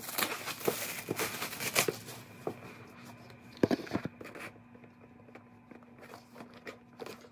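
A cardboard gift box being slid out of its sleeve and opened by hand: a dense scraping rustle with small clicks for the first two seconds, a sharp knock near the middle, then fainter handling noise as the box is tilted.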